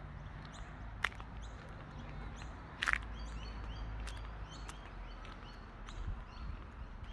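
Small birds chirping in the trees, with many short, high calls repeating throughout. A sharp crack stands out about three seconds in, and a low rumble runs underneath.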